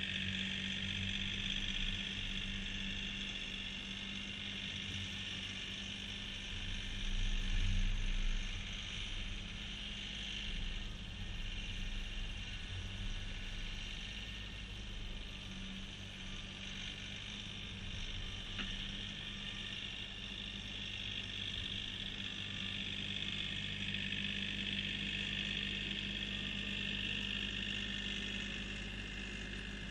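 Distant Kioti CK3510 tractor's three-cylinder diesel engine running at a steady throttle while it pushes snow, a constant drone under a steady high hiss.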